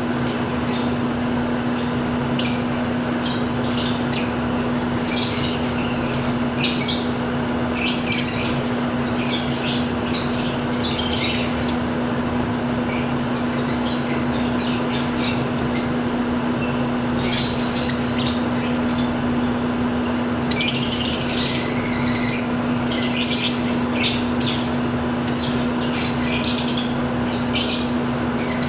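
A flock of lovebirds chirping and squawking in quick, high-pitched bursts, busiest from about twenty seconds in, over a steady low hum.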